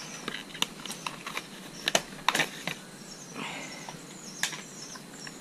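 Plastic clips of a motorcycle's battery dust cover clicking as they are unsnapped by hand: a run of sharp, irregular clicks with a brief scraping rub of plastic about three seconds in.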